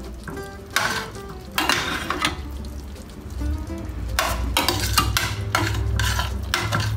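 Metal tongs scraping and clinking against a cooking pot and a serving dish in a run of short bursts, as chicken and onion sauce are dished out onto the platter.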